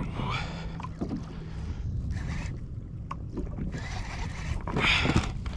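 Water sloshing against a kayak hull with wind on the microphone, in repeated washes, the loudest one near the end.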